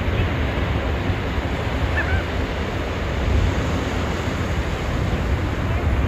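Surf breaking and washing up a sandy beach: a steady rushing with a low rumble of wind on the microphone. A faint, short high chirp about two seconds in.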